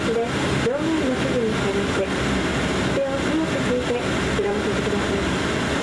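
De Havilland Canada Dash 8 Q400's Pratt & Whitney PW150A turboprop and six-bladed propeller running at taxi power, heard inside the cabin as a steady drone with a tone that wavers up and down.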